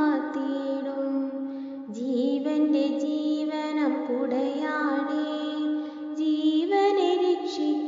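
Background music: a slow melody of long held notes that slide between pitches, moving into a new phrase about two seconds in and again near the end.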